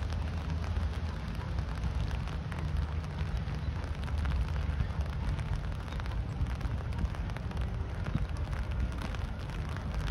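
Steady rain pattering, a dense crackle over a low rumble.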